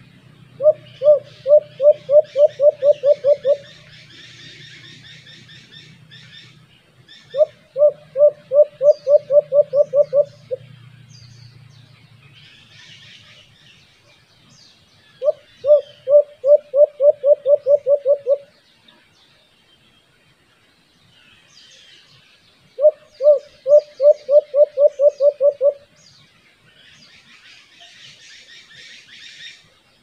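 White-eared brown dove calling: four runs of about a dozen quick, evenly spaced hooting notes, each run about three seconds long and coming every seven to eight seconds. Small birds chirp faintly in the background.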